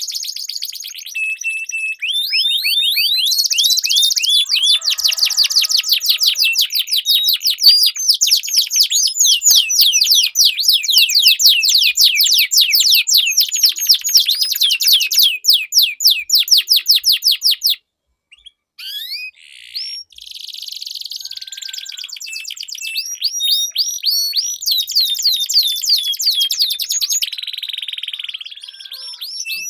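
Domestic canaries singing long rolling trills: fast runs of sharp, high, downward-sweeping notes, about five a second, broken by a brief silence a little past halfway before the song starts again.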